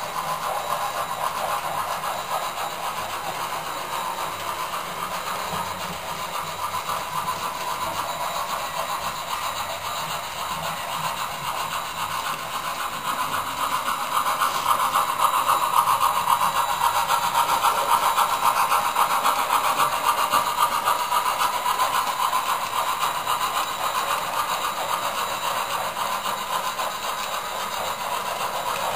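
Bachmann model Mikado steam locomotive and its train running on model railway track: a steady mechanical whir and rattle of motor, gears and wheels on the rails. It grows louder for several seconds in the middle as the locomotive passes close by.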